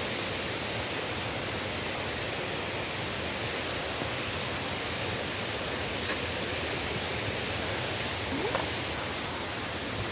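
Steady rush of falling water from a nearby waterfall, an even hiss that holds without a break.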